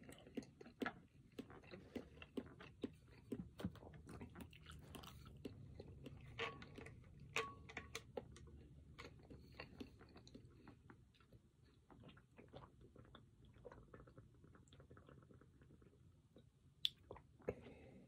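A person chewing and biting food, with many small irregular mouth clicks and two sharper clicks near the end.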